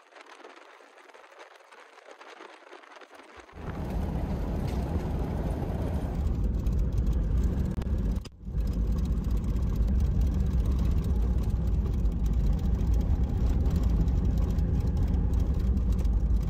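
Jeep Cherokee XJ towing a trailer on a gravel road. A faint hiss at first, then from about three and a half seconds in a loud, steady low rumble of tyres on gravel and engine, which breaks off for an instant about eight seconds in.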